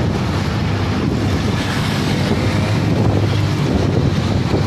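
Steady wind rush buffeting the microphone of a camera carried on a moving bicycle, a continuous low rumble.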